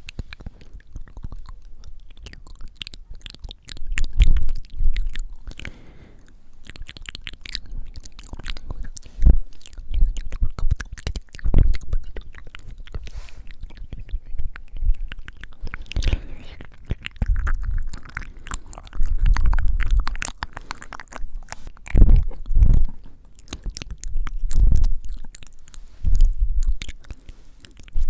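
Wet mouth sounds very close to the microphone: many small lip and tongue clicks, with breath hitting the microphone as low gusts every few seconds.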